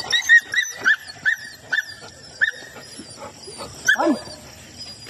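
Belgian Malinois whimpering during a mating: a string of short, high whines coming quickly, then a louder cry that falls in pitch about four seconds in.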